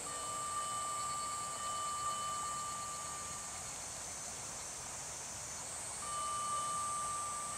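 A fire brigade vehicle's siren, a steady high tone that holds for about three and a half seconds, stops, and sounds again about six seconds in, over a constant high hiss of insects.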